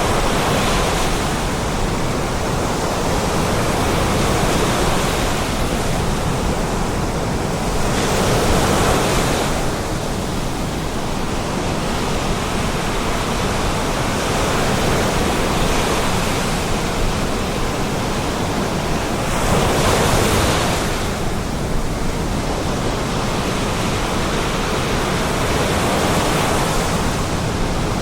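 Storm waves breaking on the Baltic Sea shore and rocks: a continuous, loud rush of surf that swells into louder surges as waves break, clearest about a third and about two-thirds of the way through.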